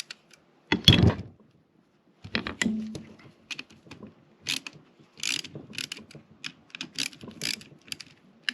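Metal tools and suspension parts being worked by hand: a heavy knock about a second in, another about two and a half seconds in, then a string of irregular sharp clicks and clinks.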